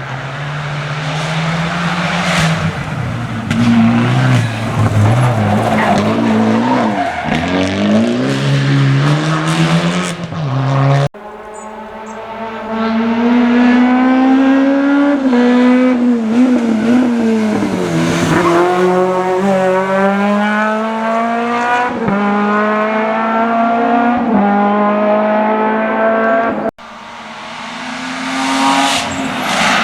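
Rally cars driven hard on a closed stage: engines revving up and dropping back through repeated gear changes, with tyre noise on the road. The sound cuts off abruptly twice, about eleven seconds in and near the end, before another engine takes over.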